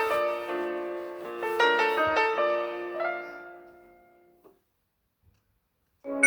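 Nokia 7370 ringtone: a polyphonic piano-like melody in chords that fades out about four and a half seconds in. After a short silence another ringtone with bright, bell-like notes starts near the end.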